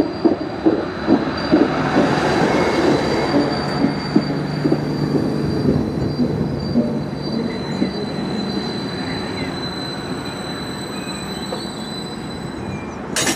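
Diesel multiple unit train passing: its wheels clatter over rail joints for the first couple of seconds, then the clatter fades. A steady high-pitched wheel squeal runs throughout, and a low engine drone dies away. A sharp click comes at the very end.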